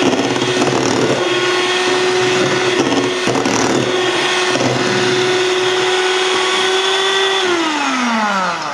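Electric hand mixer whipping meringue in a stainless steel bowl, its motor running at a steady pitch, then winding down with a falling whine near the end. The meringue is at the soft-thick, soft-peak stage.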